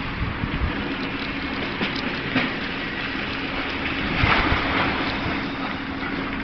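Demolition machinery running: a steady engine hum under a continuous noisy rush that swells about four seconds in.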